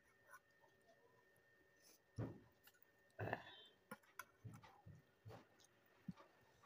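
Quiet eating sounds: soft chewing, lip smacks and clicks, scattered irregularly, with the two loudest about two and three seconds in.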